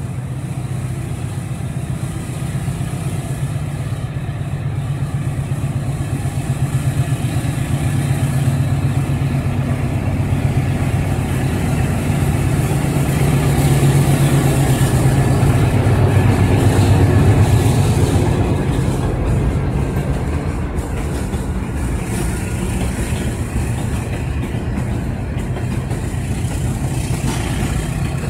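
Two CC 201 diesel-electric locomotives pass at the head of a container freight train. The deep engine drone builds to its loudest about two-thirds of the way through as they pass, then eases as the wagons follow.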